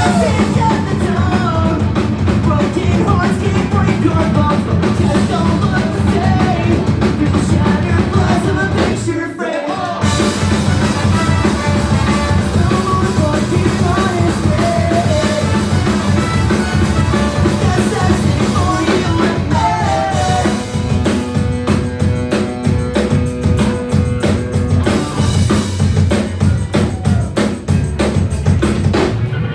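Live band playing a song with drum kit and singing, loud and full throughout; the music breaks off for a moment about nine seconds in, then the whole band comes back in.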